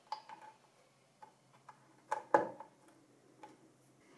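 Scattered light clicks and taps of a cable connector being handled and plugged in inside a metal server case, the rear fan's lead going onto its motherboard header; the loudest knock comes just past two seconds in.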